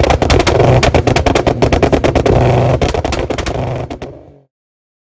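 Car engine with its exhaust popping and crackling rapidly under a low engine rumble, right after being revved, fading out about four seconds in.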